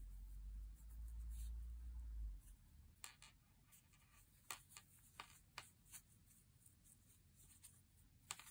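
Faint rustling and soft scattered clicks of a crochet hook drawing yarn through stitches, with a low muffled rumble for the first two seconds or so.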